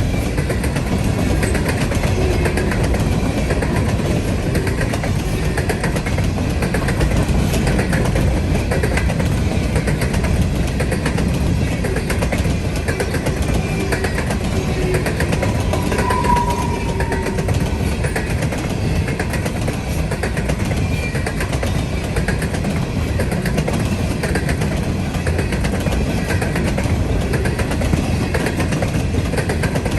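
Train cars rolling past, their wheels clicking over rail joints in a steady repeating rhythm over a continuous rumble. A brief high tone sounds about halfway through.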